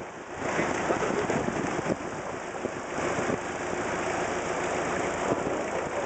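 A boat's motor running steadily under a continuous hiss of wind and breaking surf.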